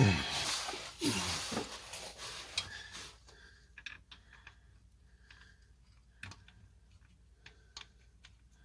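Hand tools being handled during work on a car's transmission mount: a louder scraping, rustling stretch with two short downward-sliding sounds, then scattered light clicks and taps.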